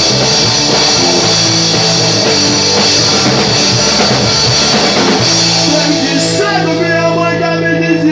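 Rock band playing live, with drums, bass and electric guitar. About five seconds in, the cymbals and drums drop away and a held chord rings on.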